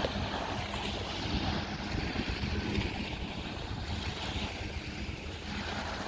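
Sea waves washing up on a beach, the wash swelling and easing, with wind rumbling on the microphone.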